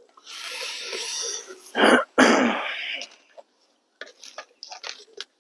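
A man clears his throat with two harsh coughs about two seconds in, after a long breathy exhale. A few faint clicks follow near the end.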